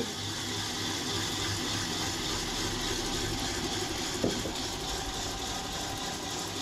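Hand whisk beating eggs in a bowl while hot milk is poured in to temper them: a steady, fast, even working sound, with one brief higher note about four seconds in.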